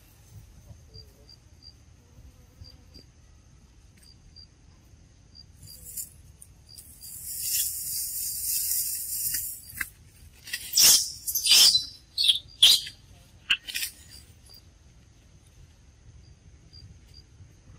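Forest insects: a faint steady high whine with a regular ticking, then a loud hissing buzz lasting about three seconds. Right after it comes a burst of five or six sharp, loud, high chirping calls.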